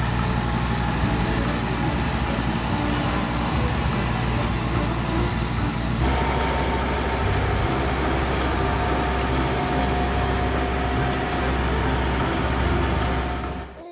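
Diesel engines of tandem asphalt road rollers running steadily, with a cut to a second machine, a Sakai roller, about six seconds in.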